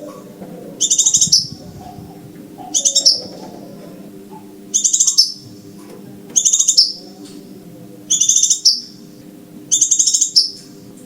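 Recorded crimson sunbird calls played as a trapping lure. A high, rapid, buzzy trill of about half a second repeats six times, roughly every one and a half to two seconds, over a faint low hum.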